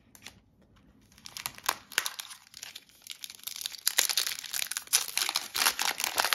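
Foil wrapper of an Upper Deck hockey card pack being torn open and crinkled by hand: crackling that starts about a second in and grows louder.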